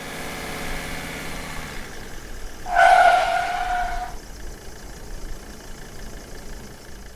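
A vehicle engine idling, then a horn sounding once, a loud steady blast of about a second and a half that is the loudest thing here, followed by a faint pulsing beep.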